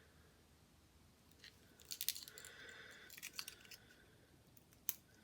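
Faint clicks and light scraping of small hand tools working on the parts of a 5th-generation iPod Nano. A cluster of sharper ticks comes about two seconds in, a few more around three seconds, and a single click near the end.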